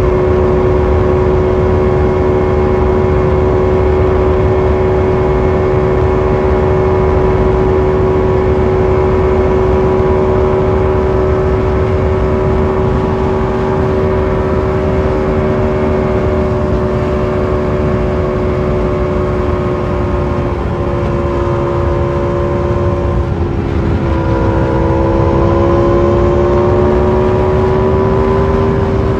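Motorcycle engine running at a steady cruising pitch under a loud rushing noise. About three-quarters of the way through, the revs dip briefly and then climb back up.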